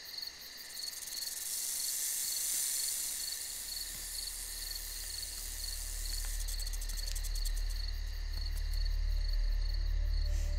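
Crickets chirping steadily in a night-time insect chorus. A low rumble comes in about four seconds in and slowly grows louder beneath them.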